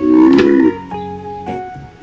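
Background music with plucked-string and keyboard-like notes, starting with a loud wavering note for the first half second or so.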